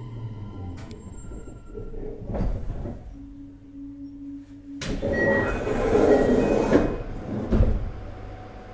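Passenger doors of a JR Hokkaido 733 series electric train closing during a station stop. A steady low tone sounds, then a sudden loud rushing hiss starts about five seconds in and lasts about two seconds, and a thump comes near the end as the doors shut. The car's equipment then hums steadily.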